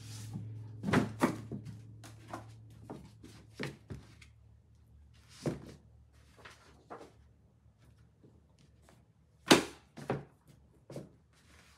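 Books being handled and set onto the shelves of a white cube bookshelf: a series of irregular knocks and thuds as books slide in and bump the shelves, the loudest about nine and a half seconds in.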